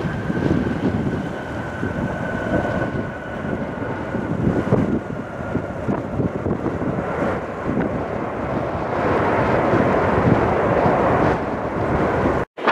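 Jet engines of an Airbus A320-family airliner during its landing rollout: a steady whine that fades away over the first several seconds under a continuous jet rumble. Heavy wind buffeting on the microphone runs throughout, and the sound cuts out briefly near the end.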